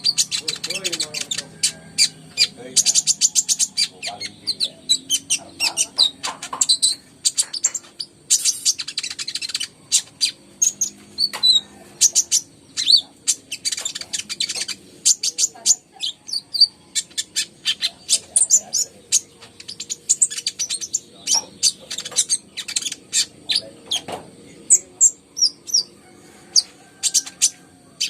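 Kolibri ninja sunbird singing in full voice: a long run of rapid, high chirps and trills with barely a pause, the kind of song played as a trigger to get other caged birds singing.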